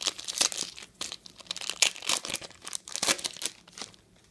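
A trading-card pack wrapper being torn open and crinkled: a quick run of sharp crackles that stops about four seconds in.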